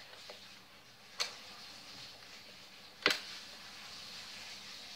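Two sharp plastic clicks, about two seconds apart, from a Nerf blaster being handled, the second louder than the first.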